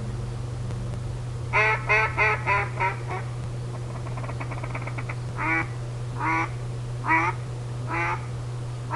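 Duck call with a burnt hedge (Osage orange) wood barrel and acrylic insert, blown as quacks: a quick string of about six, then a soft fast chatter, then four single quacks spaced under a second apart.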